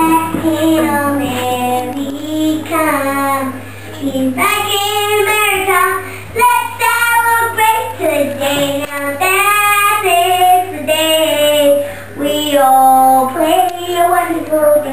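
A child singing a melody alone, without accompaniment, held notes gliding between pitches, over a steady low hum.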